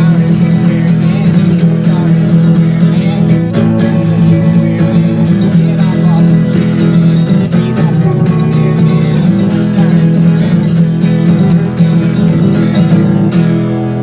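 Acoustic guitar strummed in a steady rhythm, with full chords. The strumming stops near the end and the last chord rings out.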